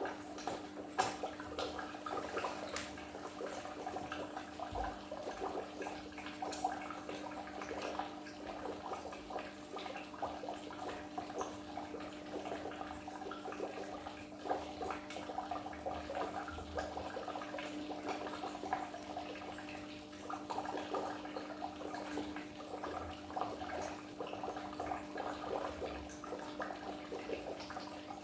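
Water bubbling and splashing in a goldfish aquarium, a steady patter of small splashes over a constant low hum.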